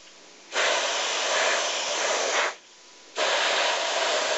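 Double-action airbrush spraying in two bursts of hiss. The first starts about half a second in and lasts some two seconds; the second starts about three seconds in.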